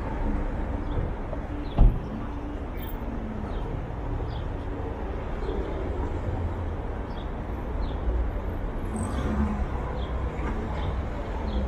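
City street ambience: a steady low rumble of traffic, with one short thump about two seconds in and faint regular ticks.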